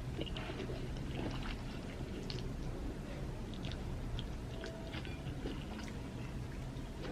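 Close mouth sounds of someone eating amala with ewedu soup and fish: chewing with scattered small wet smacks and clicks, over a steady low hum.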